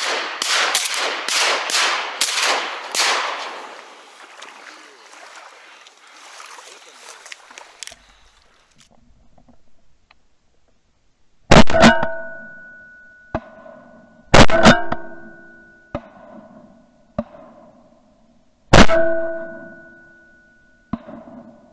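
Three loud shotgun shots, each followed by a metallic ring that dies away over about two seconds, as picked up by a camera mounted on the gun. Fainter sharp cracks come between them, and the first few seconds hold a noisy rustling.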